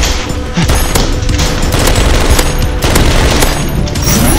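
Rapid bursts of gunfire, shots packed closely together, over background music.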